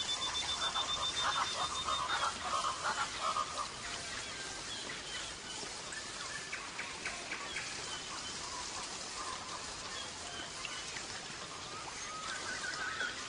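European goldfinch of the large 'Major' type singing: a held whistled note and a fast, dense run of notes for the first few seconds, then sparser twittering calls over a light hiss.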